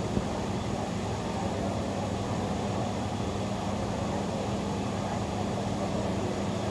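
Steady rushing background noise with a constant low hum, and one short knock just after the start.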